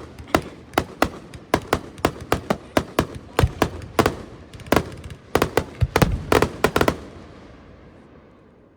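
Aerial fireworks shells bursting in rapid succession, several loud bangs a second with echoes between them, stopping about seven seconds in and leaving the echo to fade.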